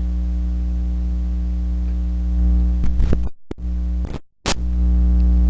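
Steady electrical mains hum with a stack of evenly spaced harmonics. It cuts out abruptly twice, briefly, a little past three and four seconds in, with clicks around the dropouts.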